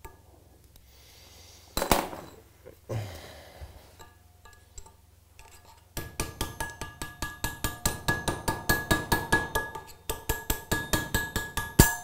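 Hammer tapping a drift quickly and evenly, about four strikes a second with a metallic ring, driving a snap ring into its groove on the nose of an AeroVee crankshaft. The taps pause briefly near the end, then resume and finish with a harder blow. Before the hammering, a few scattered metal clicks and clanks come from the snap ring being worked on with pliers.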